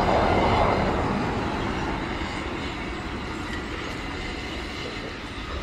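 Steam tank locomotive and a train of goods wagons rolling slowly over the rails, the rumble and rattle loudest in the first second and fading as the train draws away.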